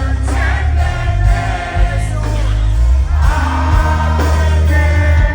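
Live reggae band music with singing over a heavy, steady bass line.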